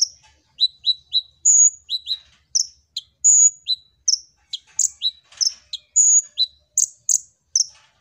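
Male purple-throated sunbird (kolibri ninja) singing: a fast, unbroken run of short, high-pitched chirps, about three or four a second, alternating between a higher and a lower note.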